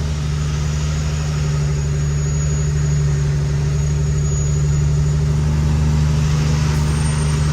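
Cummins X15 inline-six diesel of a Kenworth T800 truck running steadily at low speed, heard from inside the cab.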